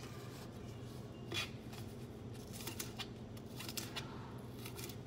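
A kitchen knife shredding a head of cabbage on a plastic cutting board: irregular crisp cuts, the loudest about a second and a half in, over a steady low hum.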